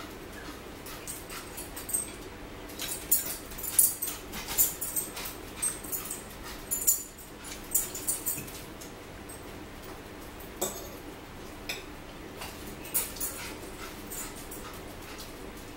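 Eating sounds: irregular wet smacks and clicks of chewing, with forks working against plastic plates.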